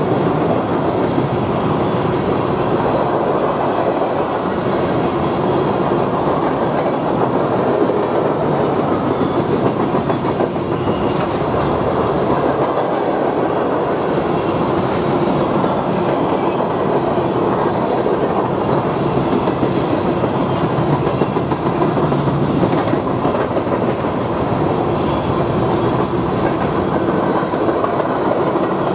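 Freight train cars passing close by: a loud, steady noise of steel wheels running on the rails, unbroken throughout.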